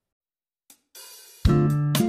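Background music starting up: silence, then a cymbal swell about a second in, and a drum beat with melody kicking in loudly about halfway through.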